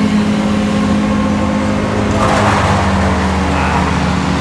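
Tree-cutting machinery engines running steadily, with a burst of rough noise from about two to nearly four seconds in.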